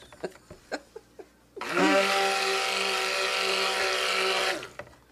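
A stick blender's motor running in a bucket of cold process soap batter: it spins up quickly about a second and a half in, runs steadily for about three seconds, then stops. Before it starts, a few light knocks of the blender against the bucket as it is stirred through the batter.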